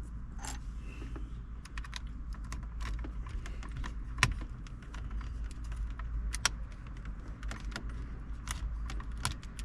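Irregular small plastic clicks and taps from a pry tool and fingers working a button off a BMW F10's climate control panel, the sharpest about four seconds in.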